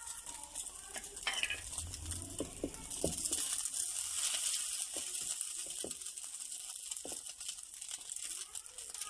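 Batter-coated slice of bread frying in hot oil in a non-stick pan: a steady sizzle with scattered small crackles, loudest through the middle.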